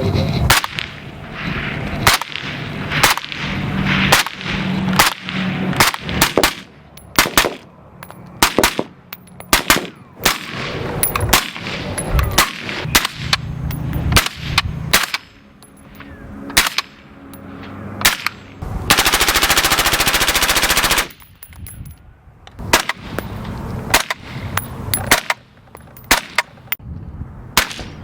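Suppressed gunfire through a Dead Air Sierra-5 silencer: a string of single shots at irregular spacing. About two-thirds of the way in comes a continuous rapid burst of about two seconds, then more single shots.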